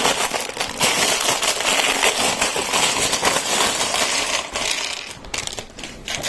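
A plastic bag of Lego pieces crinkling and rattling as it is opened and emptied, the loose plastic bricks clattering out onto the tabletop. The crackle thins to a few scattered clicks near the end.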